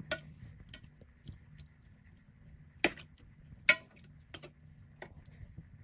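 Wooden spoon knocking and scraping in an enamel roasting pan while stirring marinade over chicken pieces: scattered light clicks, with two louder knocks about three and three-and-a-half seconds in.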